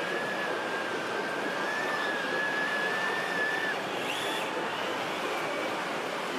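A small electric motor's steady high whine, typical of an RC model's drive or hydraulic pump, that cuts off suddenly, followed by a short rising whine about four seconds in, over the steady noise of a busy exhibition hall.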